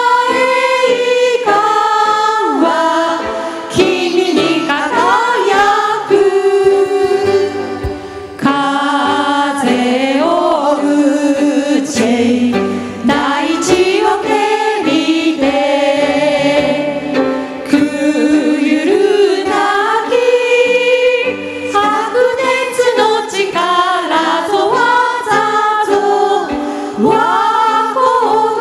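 A group of women singing a song together in Japanese, accompanied by a small band of keyboard, acoustic guitar, clarinet and violin.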